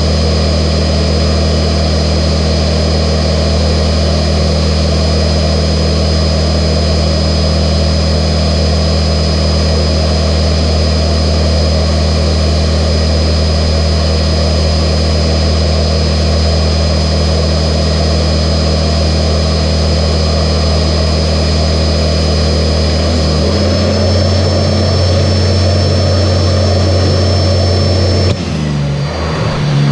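Sanitaire SC679j upright vacuum cleaner running, a steady motor drone with a thin high whine. About 23 seconds in the pitch steps up slightly, and near the end the sound shifts and briefly dips as the load on the vacuum changes.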